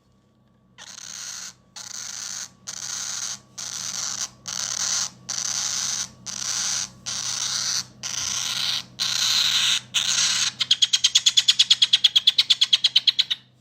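Cockatoo chick making about eleven raspy hissing calls, each under a second long and a little apart. Near the end they run into a rapid pulsing call of about eight pulses a second for some three seconds, which cuts off suddenly.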